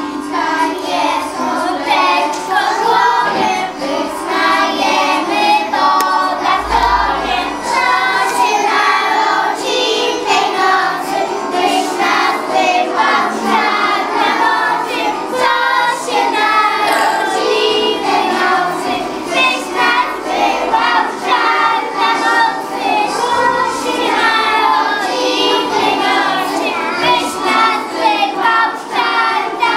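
A group of young preschool children singing a Christmas carol together.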